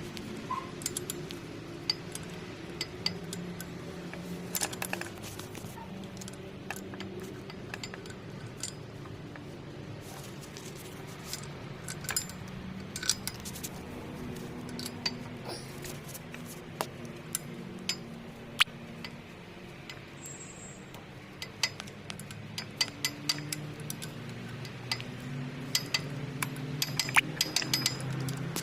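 Cummins X15 (ISX) inline-six diesel engine running with a steady hum and sharp, irregular metallic clatter over it: a noise from the timing gear train that the uploader puts down to badly adjusted camshaft gears.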